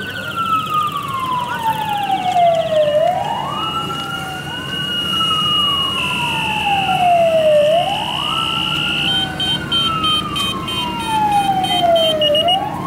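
Vehicle siren wailing: each cycle climbs quickly and falls slowly, repeating about every four seconds. A second, higher steady tone warbles rapidly near the start and breaks into short beeps in the latter part.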